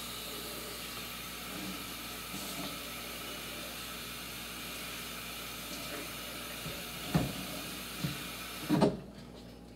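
Kitchen tap running steadily while a bowl is rinsed with clean water. A few knocks come near the end, and the water shuts off abruptly about nine seconds in.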